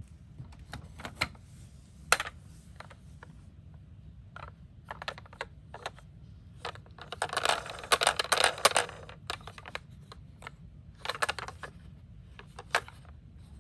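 Die-cast toy minicars clicking and clinking against each other and their box as they are handled. Scattered sharp clicks, with a dense rattle about seven to nine seconds in and another short one near eleven seconds.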